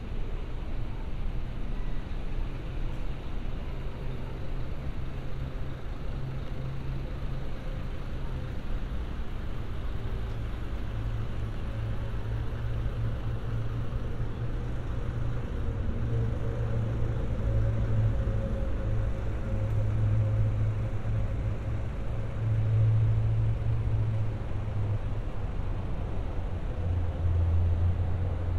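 Low, steady rumble of city traffic, with a hum that shifts slowly in pitch and grows a little louder in the second half.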